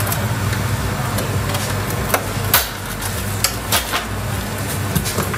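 Top cover panel of a Thermex IBL 15 O water heater being worked loose and lifted off by hand: a handful of sharp clicks and snaps, the loudest about two and a half seconds in, over a steady low hum.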